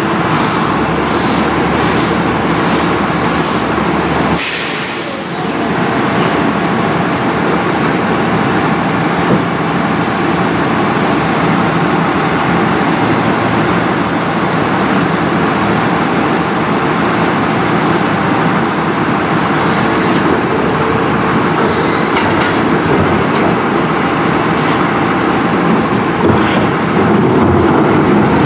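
Front-loader garbage truck's diesel engine running steadily, with a brief hiss of air about four seconds in that falls quickly in pitch, like an air brake letting off.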